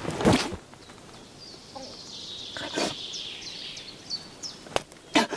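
A small bird chirping in a run of short, high, falling notes, over quiet woodland background. There are a few short rustles and knocks: a louder one just after the start and a sharp click near the end.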